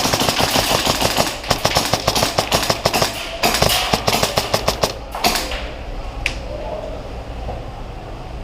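Airsoft electric rifle firing on full auto, a VFC Avalon Saber CQB AEG with a DSG gearbox, in two long strings of rapid shots with a short break about three seconds in. The firing stops about five seconds in.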